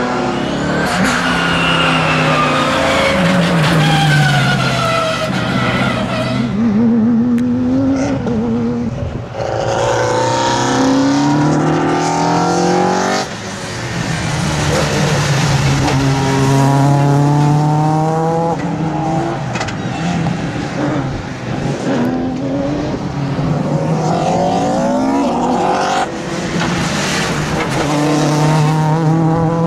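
Racing car engines revving hard, with engine pitch repeatedly climbing and then dropping as they shift up through the gears. The sound changes abruptly a couple of times as one car gives way to another.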